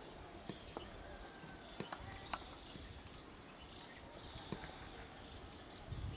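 Faint outdoor ambience: a steady high-pitched drone over a low, uneven rumble, with a few scattered small clicks.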